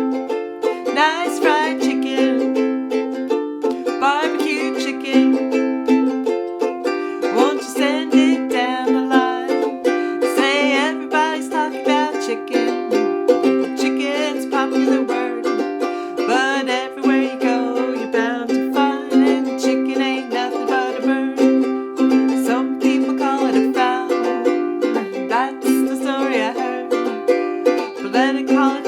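Ukulele strumming chords at a steady, unbroken pace, with a wavering melody line over the top.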